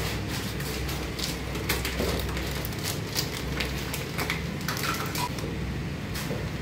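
Foil packet crinkling and crackling in the hands, then paper rustling as backing is peeled off tape, over a steady low hum.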